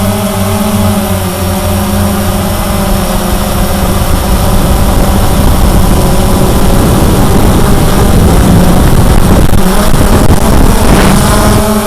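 Cheerson CX-20 quadcopter's brushless motors and propellers, heard from the onboard camera. A steady buzzing hum turns rougher and louder from about a third of the way in, then settles back to the steady hum near the end.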